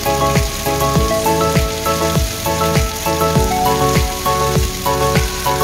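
Background music with a steady beat and changing melodic notes, over the hiss of chicken and potato pieces frying in a pan.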